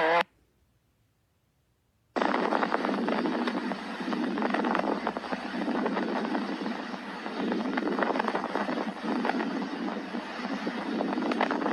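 Recorded lung sounds from chest auscultation: after about two seconds of silence, a dense crackling noise full of fine clicks that swells and eases in slow waves.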